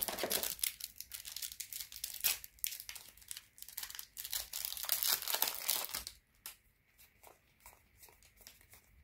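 A foil trading-card booster pack crinkling and tearing open: a dense crackle that lasts about six seconds, then only faint, sparse clicks as the cards are handled.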